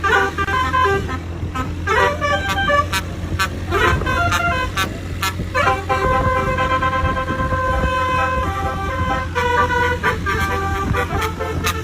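Indonesian 'telolet' multi-tone bus horn playing a quick melody of changing notes, holding one chord for a few seconds midway, over the steady low hum of the bus engine.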